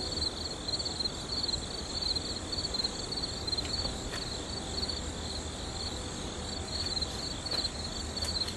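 Insects chirping in a high-pitched, evenly pulsing rhythm, with a low rumble underneath.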